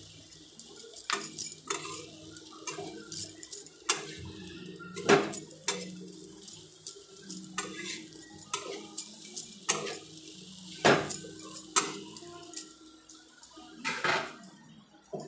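A metal utensil clinking and scraping irregularly against a metal kadai as vegetables and masala are stirred and mixed.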